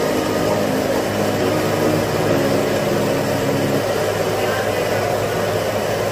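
Steady mechanical hum of plastic-processing machinery running, over a rushing hiss from green plastic granules pouring out of a steel bucket into a steel hopper. Some of the hum's higher tones drop away about four seconds in.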